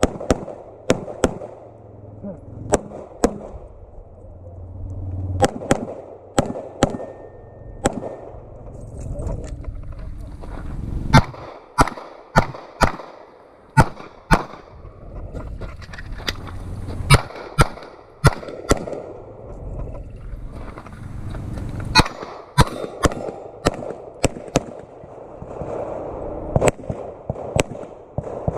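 Glock 17 Gen 5 9mm pistol firing Federal Syntech rounds through a practical-shooting stage: many sharp shots, often in quick pairs, with pauses of a second or two between strings.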